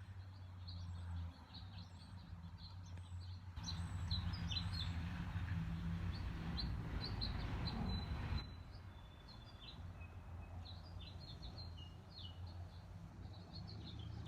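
Songbirds chirping outdoors: many short, high chirps and a few brief whistled notes. A steady rushing noise rises about three and a half seconds in and cuts off suddenly about eight seconds in, over a faint low hum.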